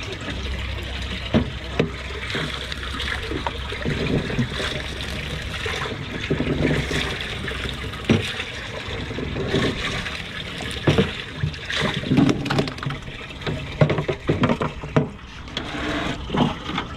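Water running and splashing in a boat's live bait well, with scattered knocks and clicks from handling rod, hook and bait.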